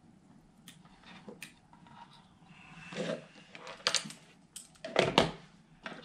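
Small clicks, taps and rustles of wires, plastic connectors and multimeter probes being handled on a tabletop, with a louder pair of knocks about five seconds in.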